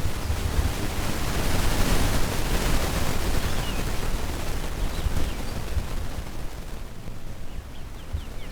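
Wind buffeting the microphone outdoors, a steady rushing hiss with a fluctuating low rumble, easing somewhat near the end. A few faint short high chirps, like small birds, come through, a cluster of them near the end.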